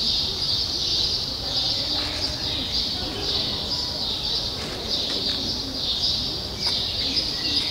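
Steady high-pitched chirping of birds, pulsing about one and a half times a second, over a low background murmur.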